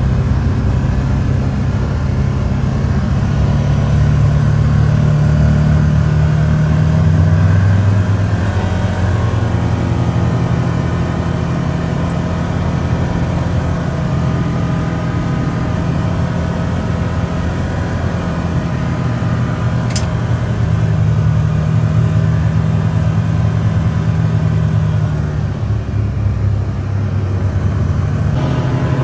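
Can-Am side-by-side's engine running steadily while driving along a gravel road, heard from inside the cab. Its note drops about a third of the way in and rises again near the end as the throttle changes. A single sharp click comes about two-thirds of the way through.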